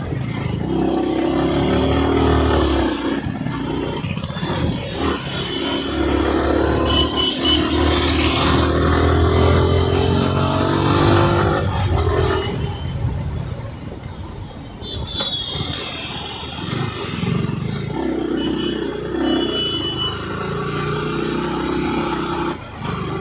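Yamaha R15M's 155 cc single-cylinder engine under the rider, its pitch climbing as it pulls through the gears and dropping back several times, over wind rush and traffic noise.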